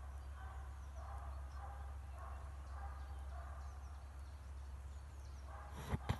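Scent hound baying far off as it runs a hare's trail: a steady string of faint yelps, about two or three a second, over a low wind rumble. Two sharp knocks near the end.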